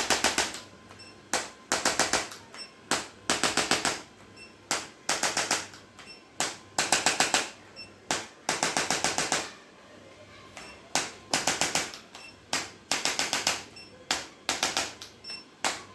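Hand-held rapid-fire chiropractic adjusting instrument clicking in short bursts, about a dozen clicks a second, each burst lasting under a second or so, with brief pauses between them as it is moved along the spine.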